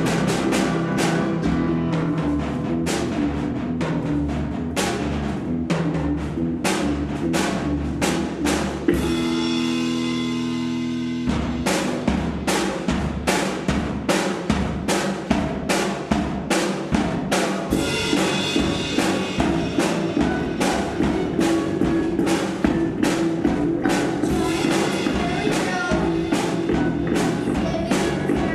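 Rock band playing loud: drum kit, electric guitar and bass guitars. About nine seconds in, the drums stop and a chord rings on for about two seconds before the full band crashes back in.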